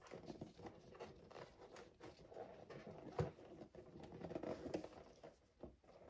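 Latex balloons being handled and rubbed against each other while being fastened onto a balloon garland. Irregular soft rubbing and small taps, with one sharper knock about three seconds in.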